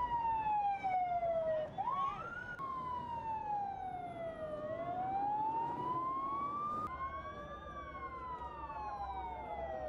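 Emergency vehicle siren wailing, its pitch falling and rising slowly over a few seconds at a time. A second siren cuts in with a short rising sweep about two seconds in.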